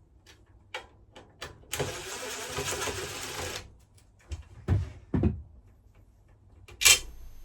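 Power drill running in about two-second bursts, driving out self-tapping screws from a furnace's sheet-metal cover, followed by two dull thumps and one sharp metallic click near the end, which is the loudest sound.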